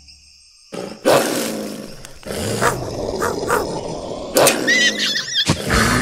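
Cartoon wolf sound effects: a pack of wolves snarling and growling, bursting in loudly about a second in after a brief hush, with a short high wavering cry near the end.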